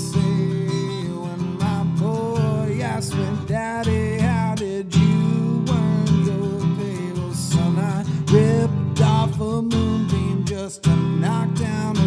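Music: a rock song with strummed acoustic guitar chords and a wavering, vibrato melody line above them.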